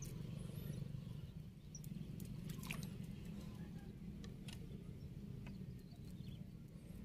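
Faint outdoor background: a steady low rumble with scattered small clicks and a few faint high chirps.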